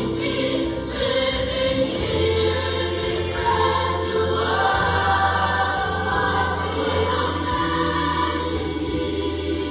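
Large mixed show choir singing held chords that shift every second or so, with a steady low bass note coming in about two seconds in.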